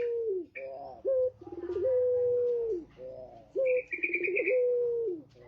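Male puter pelung, a domestic Barbary dove, giving its long coo. Each call is a short note, then a quick rolling stretch, then a long held note that drops away at the end. Two full calls follow the tail of an earlier one. A brief higher twitter from another bird comes about four seconds in.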